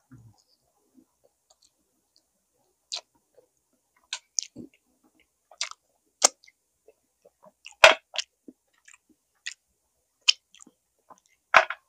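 Close-up mouth sounds of someone chewing barbecued pork ribs: irregular wet smacks and clicks, a few of them sharper and louder.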